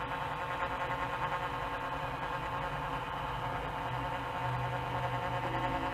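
DEWALT DCE580 cordless caulking gun's motor running steadily as it drives the plunger and pushes sealant out along a joint, a steady hum that grows slightly louder about four and a half seconds in.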